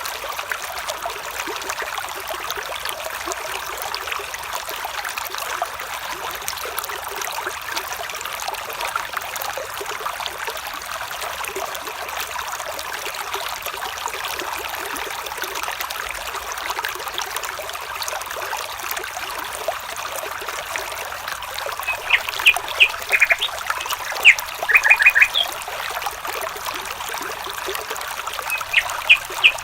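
Water trickling steadily, like a small stream over stones. In the last third, a bird calls in short, quick clusters of high chirps over the water.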